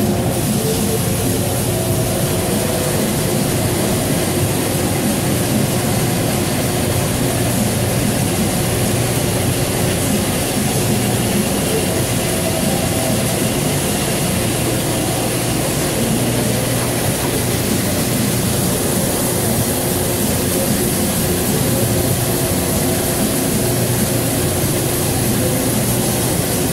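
Citizen C32 CNC Swiss-type lathe running a machining cycle: a steady machine hum under the hiss of cutting coolant spraying inside the enclosure.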